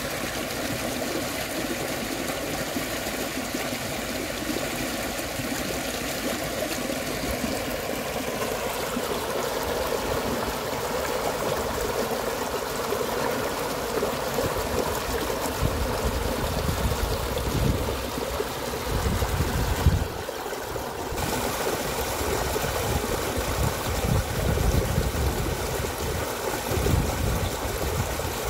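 Shallow muddy stream rushing and splashing over a small cascade, a steady rush of water with low gusty rumbles in the second half and a brief drop about two-thirds of the way through.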